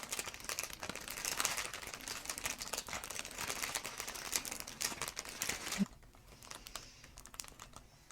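Crinkly rustling and friction noise as hands handle the patient's head and neck on the treatment table, dense for about six seconds, then stopping abruptly and leaving only faint scattered ticks.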